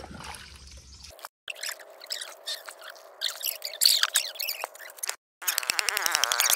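Water splashing and dripping with scattered knocks as a large block of ice is washed down and handled on wet ground. Near the end comes a fast run of clicks.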